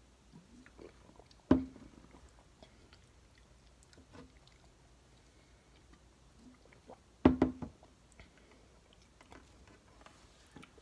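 Someone drinking from a shaker bottle, with faint swallowing and small mouth and bottle sounds, broken by two loud sudden knocks: one about a second and a half in, and a cluster of strokes about seven seconds in.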